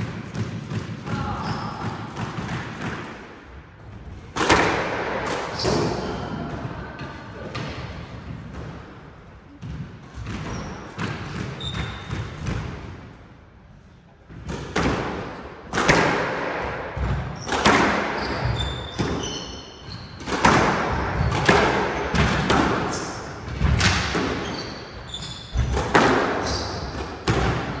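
A squash rally: the ball is struck by racquets and smacks off the court walls again and again, each hit echoing in the court. A first run of hits is followed by a lull about halfway, then a second, faster rally with short high squeaks of shoes on the hardwood floor.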